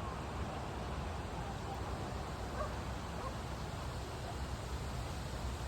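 Steady outdoor background noise: a low, fluttering rumble with hiss, as of wind and distant surf, with no distinct event.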